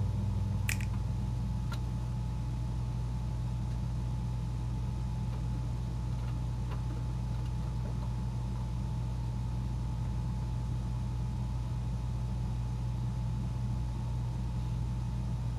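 Steady low mechanical hum, even and unchanging, like a motor running continuously.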